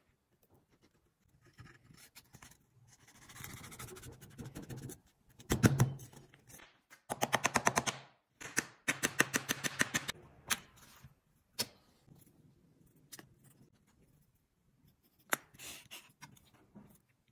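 A glued wooden tenon being pressed into its open slot mortise: rubbing, a knock, then two spells of rapid clicking chatter, about ten clicks a second, as the tight wood-on-wood fit slides together. A few single taps follow.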